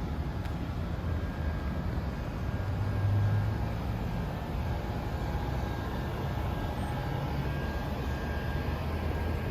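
Steady low rumble of motor vehicle noise, briefly a little louder about three seconds in.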